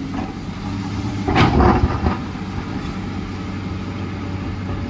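Excavator's diesel engine running steadily, with a louder burst of noise about one and a half seconds in.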